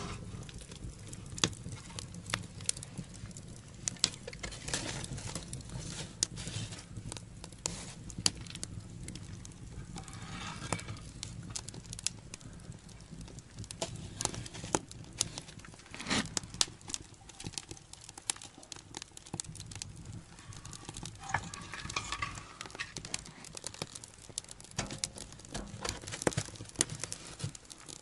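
Wood fire burning in a small stone stove's firebox, crackling with irregular sharp pops over a low steady hum.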